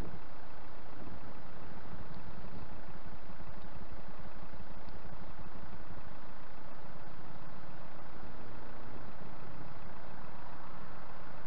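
Car engine idling close by, a steady low hum under an even wash of wind noise on the microphone.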